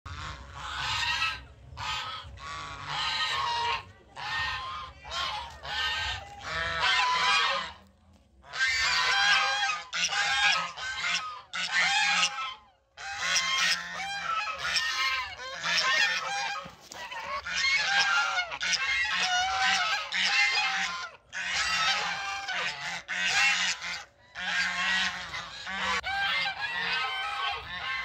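Runs of loud, high honking calls, goose-like, that come in rapid strings with a few short breaks.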